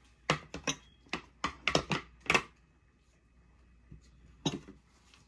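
A quick run of about eight light clicks and taps against a glass baking dish, then quiet, with two or three more taps about four and a half seconds in: kitchen utensils and containers knocking on the glass while the spices for a marinade go in.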